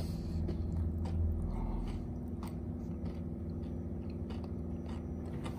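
Close crackling and rustling of preserved moss and plastic fern leaves as a face and fingers press and rub against a moss wall: a scatter of small crunchy clicks. A steady low hum runs underneath, loudest for the first two seconds.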